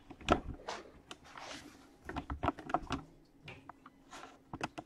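A scattered series of light clicks and knocks, with a quick run of them about two to three seconds in: handling noise from the aquarium stand's cabinet and the camera as the view moves to the tank.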